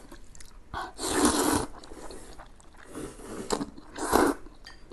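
A person slurping buckwheat noodles from a bowl: a run of noisy slurps, the longest and loudest about a second in, with two shorter ones near the end.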